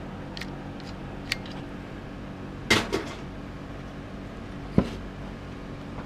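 Hard plastic clicks and knocks from an AEG 18V battery pack's casing being handled and taken apart: a few light clicks, a short clatter about three seconds in, and a sharp knock near five seconds. A steady low hum sits underneath.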